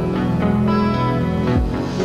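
Background music with held notes that change every half second or so; a low note slides down about three-quarters of the way through.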